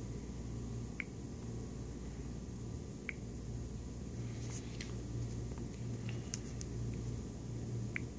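Steady low hum of a small room, with a few faint short clicks and ticks scattered through it from a hand handling and tapping a smartphone.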